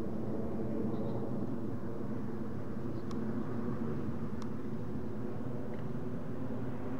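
Twin-engine jet airliner on approach passing high overhead: a steady low rumble. Two faint clicks about three and four and a half seconds in.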